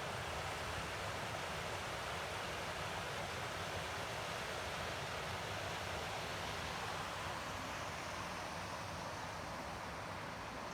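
Steady rush of fast-flowing water from a mountain river or waterfall, an even hiss with no breaks, easing slightly near the end.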